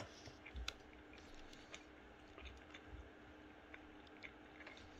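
Faint closed-mouth chewing of a mouthful of pasta with Greek yoghurt, heard as scattered small wet clicks close to a headset microphone, over a thin steady hum.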